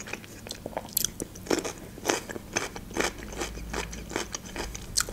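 Close-miked chewing of a crunchy pickled cucumber: irregular sharp crunches, about two a second, with wet mouth sounds between them.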